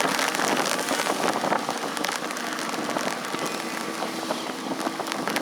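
Steady pattering and splashing of water, with many small sharp clicks throughout.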